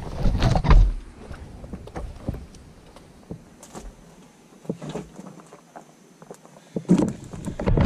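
Scraping, rubbing and scattered knocks as a rubber car tyre and a wooden chopping block are shifted by hand, loudest about half a second in and again near the end.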